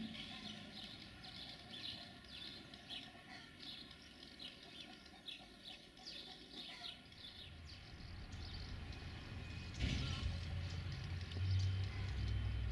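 Songbirds chirping, many short falling chirps one after another. In the second half a low rumble builds and is loudest near the end, with a sharp knock about ten seconds in.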